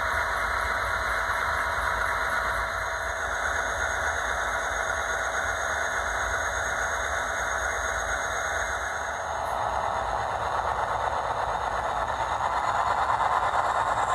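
HO scale MPXpress (MP-36PH) model locomotive's onboard sound decoder playing a diesel engine idling through its small speaker, growing a little louder near the end.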